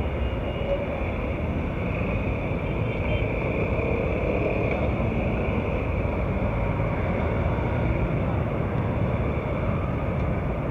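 Steady street traffic noise from motorbikes, cars and buses running past on a busy road.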